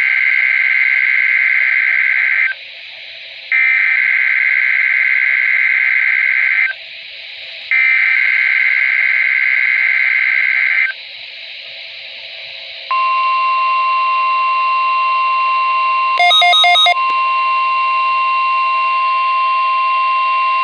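NOAA Weather Radio weekly test tones over a hissing radio channel. There are three bursts of the SAME digital header, a warbling data screech of about three seconds each with a second's pause between. After a short gap of hiss comes the steady 1050 Hz warning alarm tone, broken once by a brief stutter of beeps.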